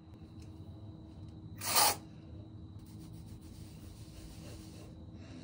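A short, sharp hiss about two seconds in, then a soft steady rubbing as fingers work through long, just-washed hair at the scalp.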